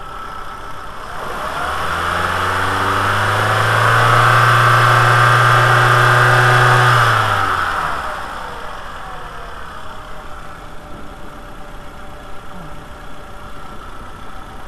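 VW New Beetle's 2.0-litre four-cylinder engine idling, then revved up for a few seconds, held, and let fall back to idle. The revving is to force coolant circulation, and still no flow shows: the water pump has failed.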